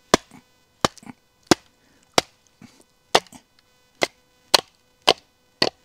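Wooden baton striking the spine of a full-convex camp knife (Work Tuff Gear Red Wolf), driving it down through a heavy, knotty log to split it: about nine sharp wooden knocks, roughly one every two-thirds of a second.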